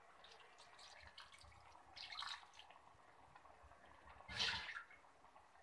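Water poured from a small vessel into a stainless-steel kadai of mushroom masala, faint splashing and dripping into the pan. A louder splash comes about four and a half seconds in.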